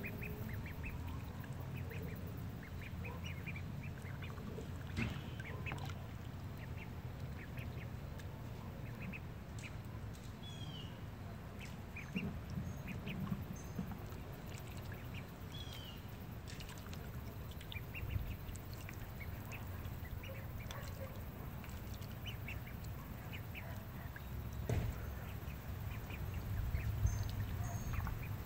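Ducks quacking and calling in short, scattered calls, over a steady low rumble.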